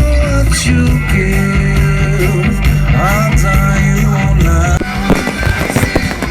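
A loud rock song with singing and guitar. About five seconds in, the song changes and a rapid run of sharp bangs and crackles from fireworks comes in over it.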